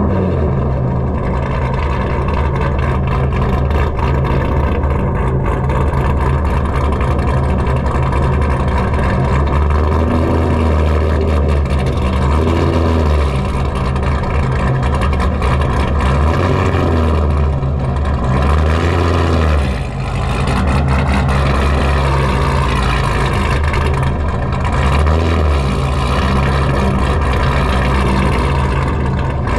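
Built C7 Corvette's V8, fitted with a big aftermarket camshaft, idling with an uneven, choppy rhythm, the loping idle of a large cam. It dips briefly about twenty seconds in.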